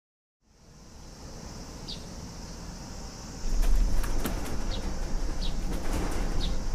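Low rumbling and rattling of a room shaking in an earthquake, growing louder about three and a half seconds in. Under it runs a steady high hiss with short high chirps about once a second.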